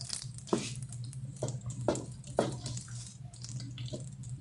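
Wooden spoon stirring thick, porridge-like haleem in a non-stick pan: a string of irregular wet squelching strokes.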